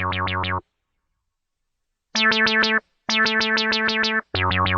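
Music: a single keyboard chord stuttered in rapid pulses, about ten a second, in short bursts with dead silence between them.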